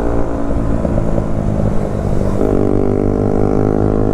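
Single-cylinder Bajaj Pulsar NS motorcycle engine running under way. The note shifts to a new steady pitch about two and a half seconds in.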